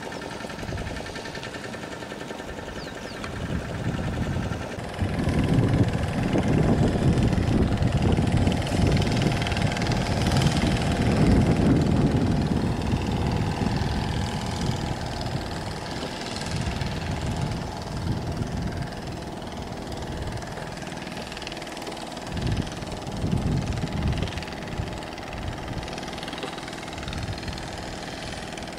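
An engine running steadily, growing louder about five seconds in and easing off again after the middle.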